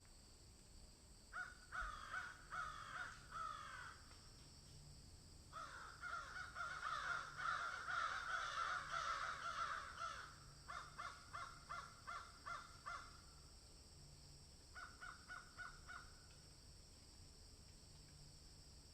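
Animal calls: bouts of rapid, short, harsh calls, each dropping slightly in pitch, with pauses between the bouts and a steady high hiss underneath.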